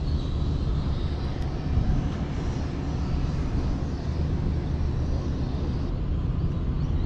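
Steady low rumble of wind buffeting the camera's microphone, flickering without any clear tone.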